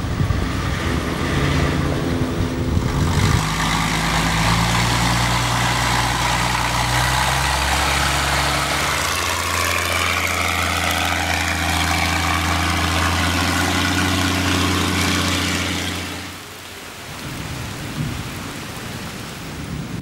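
Boat engine running steadily, its pitch shifting a couple of times, under a loud rushing noise of water. It dies away near the end.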